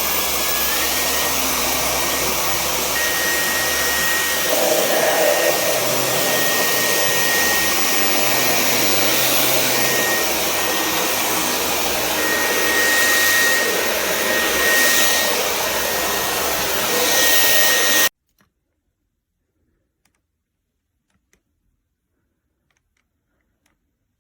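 Dyson V10 Animal cordless stick vacuum running: a steady motor rush with a thin high whine that steps up slightly in pitch about a second in. It cuts off suddenly about eighteen seconds in.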